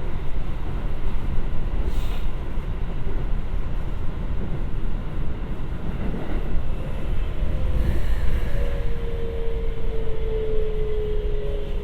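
Keikyu 1000 series electric train running, heard inside the motor car: a steady rumble of wheels on rail. About two thirds of the way in, the whine of its Siemens GTO-VVVF inverter motor drive comes up and slowly falls in pitch as the train slows.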